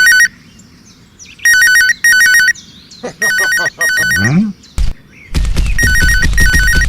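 Telephone ringing with an electronic warbling ring that trills fast between two pitches, in pairs of short rings repeated about every one and a half to two seconds. A brief rising sound comes about four seconds in, and a low rumble runs under the last rings.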